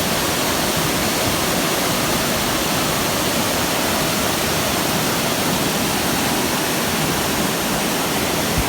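Wli waterfall pouring down: a steady, unbroken rush of falling water.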